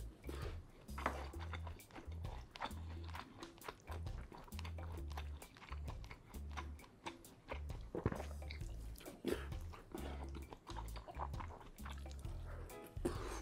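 Background music with a repeating bass line under eating sounds: a wooden spoon scooping curry and rice from a metal pan, with chewing and short clicks.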